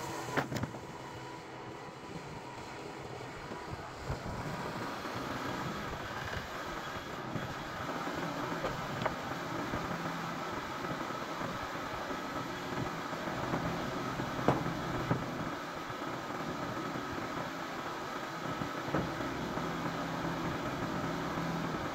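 Portable band sawmill's engine running steadily without cutting, with a few sharp knocks of boards and slabs being handled, the loudest about half a second in and again about two-thirds of the way through.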